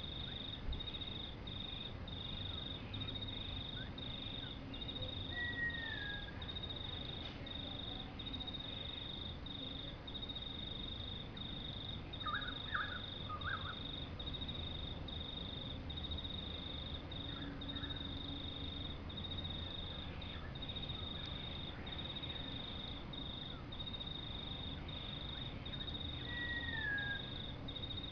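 High, steady chirping of an insect in an even pulsing rhythm over a low rumble of background noise. A brief falling whistle comes twice, once about five seconds in and again near the end.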